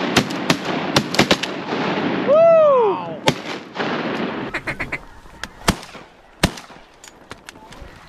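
Rapid goose honks and clucks, with one long honk that rises and falls about two and a half seconds in. The calling fades after about three seconds, leaving scattered sharp clicks.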